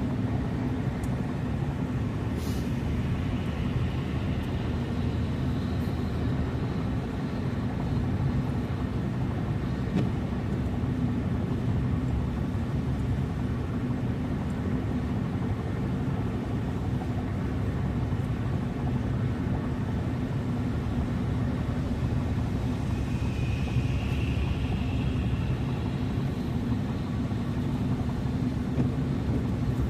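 A car being driven, heard as steady low road and engine rumble with no change in speed.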